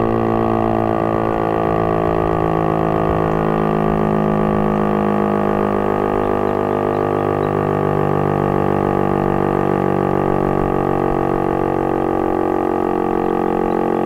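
Federal Signal STL-10 electronic tornado siren sounding its steady alert tone: a loud, sustained, buzzy drone with many overtones, holding one pitch without a break during a full alert test.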